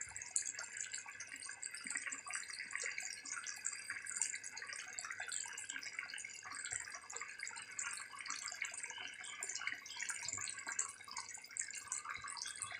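Pork and mustard-green curry boiling in a wok, its gravy bubbling and popping continuously.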